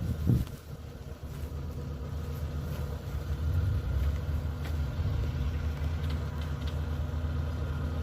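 Kubota combine harvester's diesel engine running steadily with a low rumble, with a brief thump just after the start.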